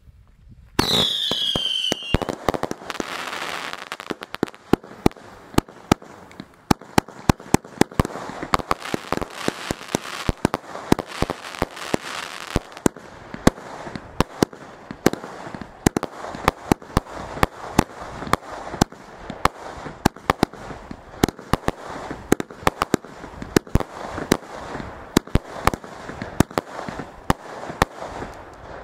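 A firework compound cake fires a rapid, continuous run of shots and bursts over constant crackling. A short falling whistle sounds about a second in, and the sharp reports follow one another at an uneven pace through to near the end.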